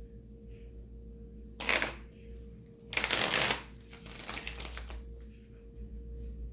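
Tarot cards being shuffled: two short riffling bursts about a second apart, the second longer and louder, then softer rustling of the cards.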